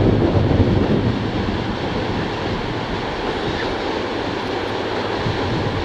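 Wind buffeting the microphone over a steady rush of surf breaking below; the gusts are heaviest in the first second or so, then ease.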